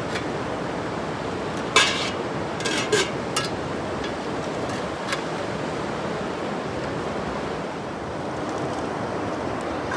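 Steady rush of a river flowing over rocky rapids, with a few sharp clanks of metal lids being set on an aluminium cooking pot and an iron wok about two to three and a half seconds in, and one more near five seconds.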